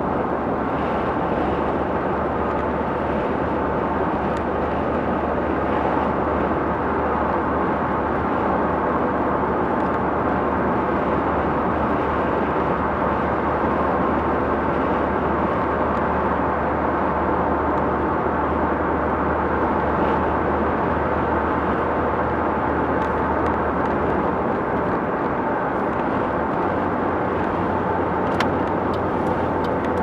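Steady road and engine noise inside a moving car's cabin: tyre roar over a low engine hum. The low hum shifts a little in pitch near the end.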